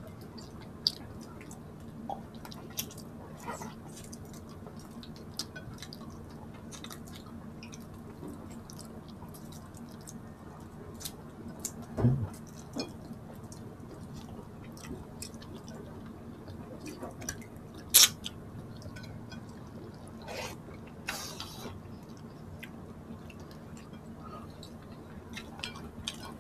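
A person eating salmon head and shrimp in sour soup, close to the microphone: scattered chewing and small mouth and utensil clicks, with a low knock about 12 seconds in and a sharp click around 18 seconds. A low steady hum runs underneath.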